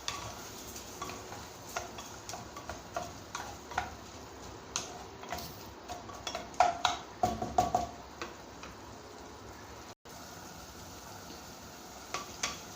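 Scattered clicks and clinks of a spoon against a pressure cooker pot as lentils and vegetables are added and stirred, busiest a little after halfway, over a faint sizzle of the vegetables frying.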